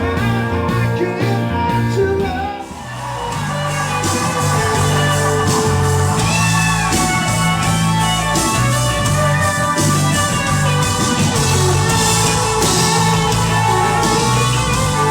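Live rock band playing with electric guitar and bass and a singing voice, after a brief drop in level about two and a half seconds in.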